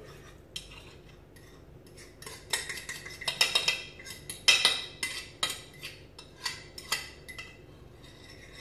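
A kitchen utensil scraping and clinking against a dish, scooping a mashed banana and egg-yolk mixture into a glass mixing bowl: a string of sharp clicks and scrapes with short rings, busiest in the middle.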